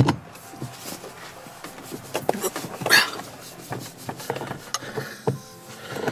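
Scattered clicks and knocks of hand tools on metal, with a brief scraping, hissing burst about halfway through, as an impact bolt extractor is worked onto a rounded-off Torx seatbelt anchor bolt.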